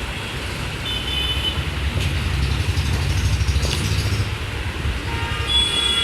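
Road traffic rumbling, a vehicle engine close by growing louder through the middle, with a brief high tone about a second in and a longer high-pitched sound near the end.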